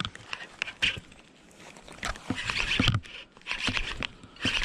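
Spinning reel whirring in short bursts while a hooked fish is fought, with a few sharp clicks between the bursts.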